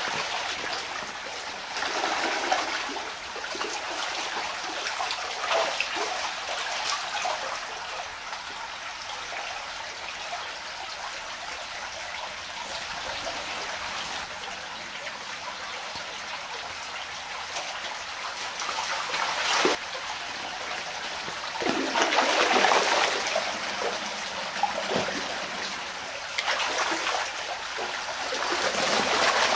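Shallow stream water running and trickling steadily, with louder swells of splashing where white suckers thrash while spawning in the shallows: a few seconds in, around two-thirds of the way through, and near the end.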